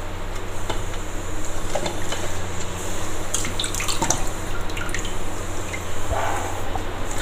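Wet soaked rice and lentils scooped by hand out of a steel bowl of water and dropped into a mesh strainer, with water dripping and splashing back into the bowl in small irregular splashes.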